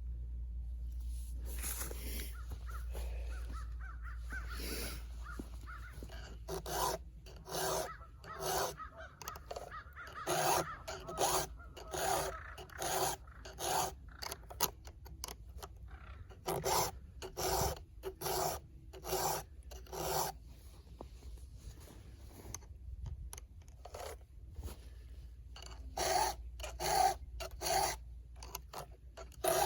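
Hand file rasping across the cutters of a chainsaw chain in short, evenly paced strokes, about one and a half a second. There is a pause of a few seconds past the middle, then the strokes resume.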